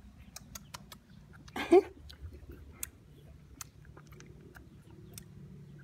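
Baby macaque eating an ice-cream bar, with a run of small wet smacking and licking clicks. One short vocal sound about a second and a half in is the loudest thing.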